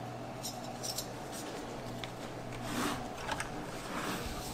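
Soft clicks and rustling from hands turning over and handling a Reeven Brontes low-profile CPU cooler, its metal heatsink and fan, with a faint steady low hum underneath.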